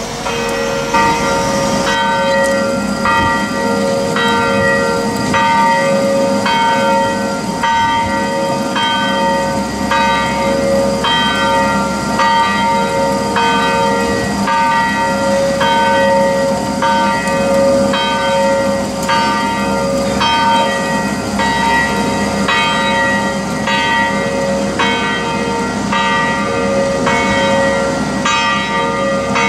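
Church tower bells swinging and ringing in a steady peal at twelve noon, a new stroke about once a second with the tones ringing on between strokes.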